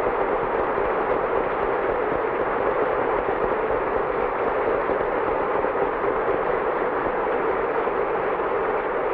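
A large indoor audience applauding: a dense, steady clatter of many hands clapping at once. It is an ovation at the close of a speech.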